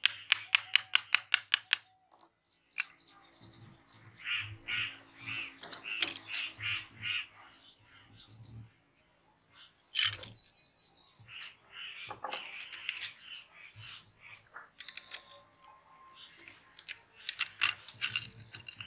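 A hammer rapidly tapping the metal end cover of a small sewing machine motor: about ten quick, sharp strikes in the first two seconds, then scattered knocks and another quick run of taps near the end.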